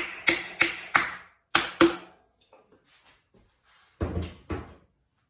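Hammer striking a piece of wood held against the end of a stuck dirt bike front axle to drive it out: a quick run of about six sharp knocks in the first two seconds, then two more about four seconds in.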